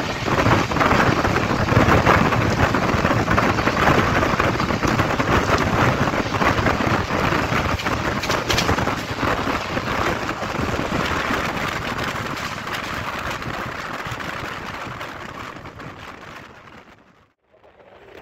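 Running noise of a moving passenger express train heard from an open window: a steady rumble of wheels on the track mixed with rushing wind. It fades over the last few seconds and drops out almost completely just before the end.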